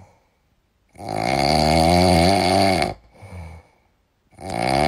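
Small dog snoring in its sleep: two long, drawn-out snores about two seconds each, the first about a second in and the second starting near the end, with a faint short one between them.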